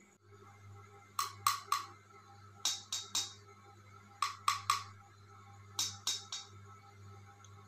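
Sharp clicks in four groups of three, each group about a second and a half after the last, over a steady low hum.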